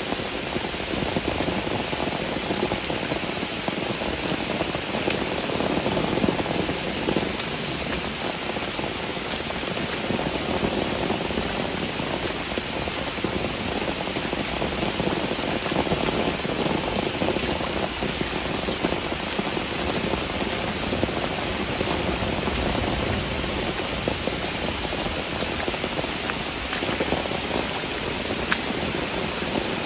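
Heavy rain pouring steadily onto forest leaves and a flooded trail, with boots splashing through the water covering the path.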